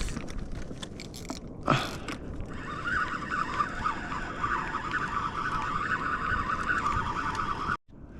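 Fishing reel's drag buzzing steadily as a big fish on the line pulls line off, starting about two and a half seconds in and cutting off abruptly near the end. A single knock comes just before it.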